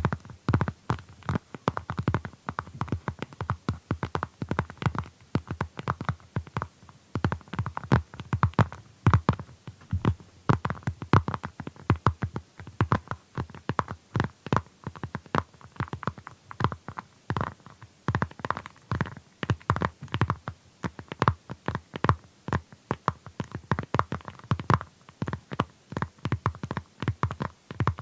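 Fingernails tapping on a plastic phone case, a steady run of quick light taps in irregular clusters.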